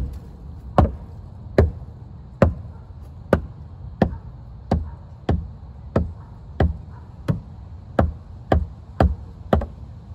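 Steady, repeated blows of a tool striking wood, about fourteen strikes less than a second apart, coming a little faster toward the end.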